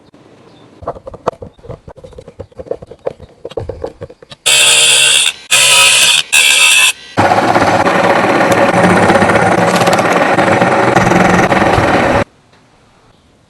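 Workshop tool noise: faint irregular scraping and tapping, then three short loud bursts and a loud steady run of about five seconds from a machine or power tool, which cuts off abruptly.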